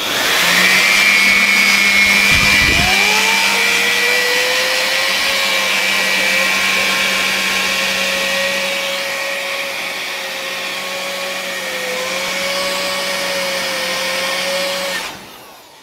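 Electric air blower running, a loud steady rush of air with a whine. It drives a PC cooling fan. About two and a half seconds in a whine rises in pitch and then holds, and near the end the blower cuts off and the sound falls away.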